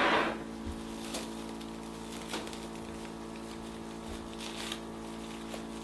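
Plastic wrap rustling and crinkling as it is pressed down over stiff cake batter in a pan, loudest right at the start and then only a few faint ticks, over a steady electrical hum.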